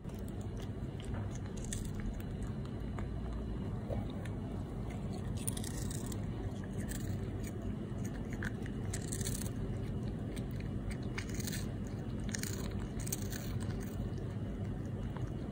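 A cat crunching and chewing a capelin treat from a stainless steel bowl, with irregular crisp crunches, close to the microphone.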